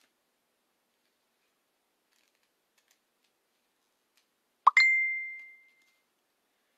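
Near silence for about four and a half seconds, then a short electronic notification chime: a quick rising plop straight into a single clear ding that fades out over about a second.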